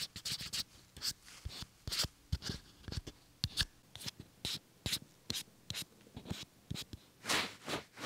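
Handling noise from a Rode wireless clip-on mic transmitter: fingertips tap, scratch and rub on its body, picked up by its own built-in mic as a string of soft, irregular taps and scrapes, with a longer rub near the end.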